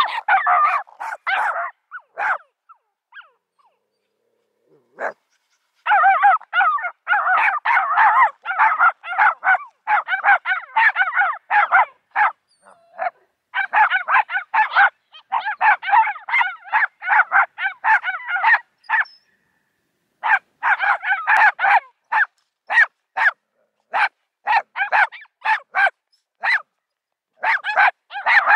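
Small dogs barking in rapid, excited volleys at an unfamiliar dog, several high barks a second. There is a pause of a few seconds near the start and a brief break about two-thirds of the way through.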